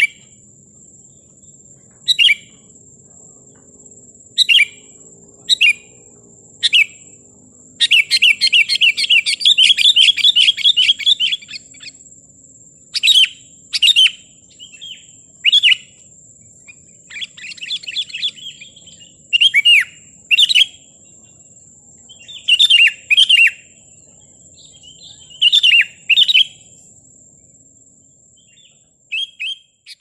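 Sooty-headed bulbul singing: short calls every second or two, broken by a long rapid chattering run about eight seconds in that lasts some four seconds, and a shorter run a little later.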